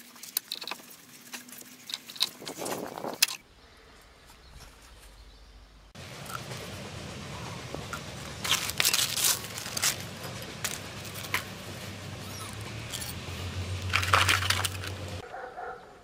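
Scattered sharp metallic clinks and knocks from hand tools and steering parts being handled, in separate cut-together stretches. Through the second half a low steady hum runs under more clicks, growing louder near the end.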